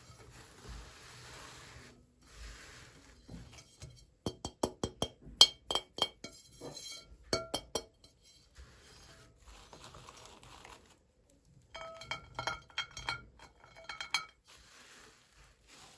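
Small hard pieces clinking against each other and against a hard container, in two runs of quick ringing clicks a few seconds apart, with quiet rustling handling between them.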